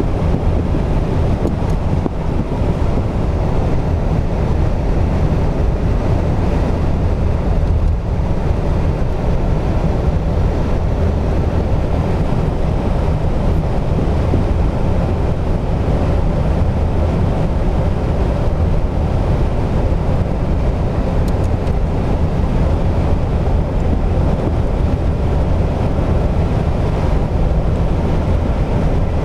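Steady wind and road noise of a vehicle travelling at highway speed, with wind buffeting the microphone.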